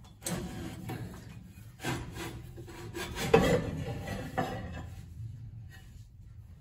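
A metal cover being worked loose by hand and pulled off the front of a transmission: irregular scraping and rubbing with a few knocks, loudest about three seconds in.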